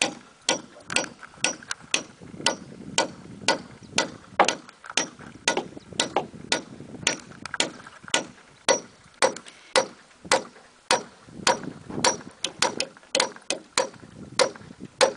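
Hammer blows driving a long 8-inch steel nail at an angle through a round timber pole into the post beneath, in a steady rhythm of about two strikes a second.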